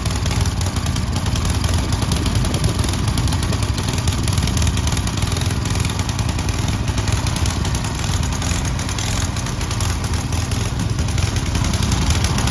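Snow blower engine running steadily as the machine cuts through packed snow and moves it aside.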